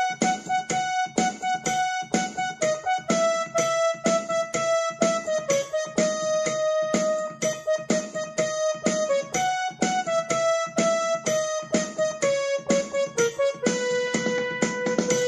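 Background instrumental music on a piano-like keyboard: a slow melody of held notes over steady repeated strikes, about three or four a second.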